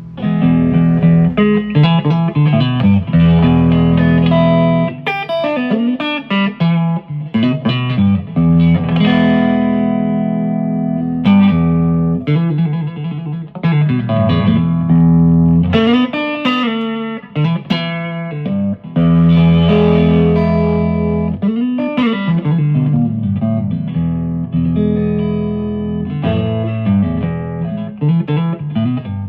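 Electric guitar played through an Orange Crush amp on its own: chords strummed and left to ring, with pitch slides between them and short breaks. The amp sounds clean, no longer making the weird squeaky noise it had been making.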